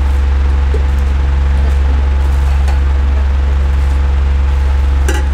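A loud steady low hum, with a couple of short clicks near the end.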